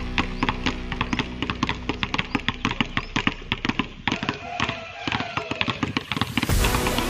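Many basketballs being dribbled at once on a concrete court: a quick, irregular patter of bounces, several a second, over background music. The bouncing thins out for a moment about four seconds in.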